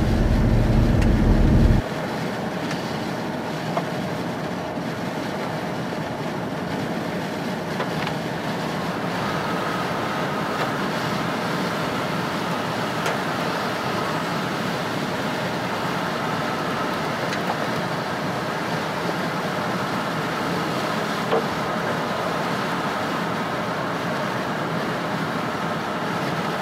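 Steady noise inside a car driving through heavy rain: tyres hissing on the wet road, with rain and wind on the car. A heavy low rumble runs for the first couple of seconds and cuts off abruptly.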